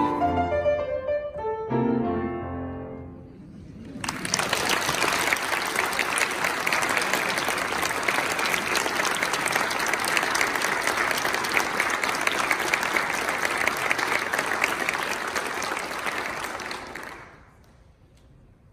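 The last piano chords of a choral piece ring out and fade, then audience applause starts about four seconds in, runs steadily and dies away near the end.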